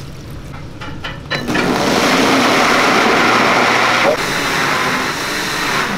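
Countertop blender running at high speed, puréeing carrot chunks with water. It starts about a second and a half in after a few clicks, runs loud and steady, and eases slightly a little after four seconds in.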